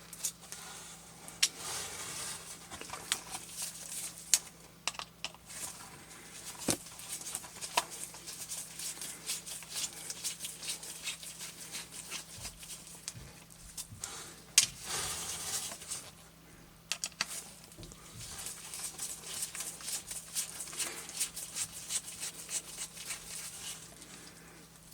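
Small 00 Phillips screwdriver backing tiny screws out of a radio's circuit board: scattered faint clicks and ticks of the driver tip, screws and small plastic parts being handled, at uneven intervals over a low steady hum.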